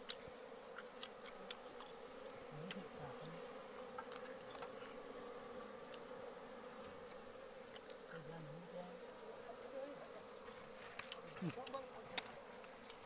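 Bees buzzing steadily around their nest exposed in a cut-open hollow tree trunk, a faint, even swarm hum with a few small clicks.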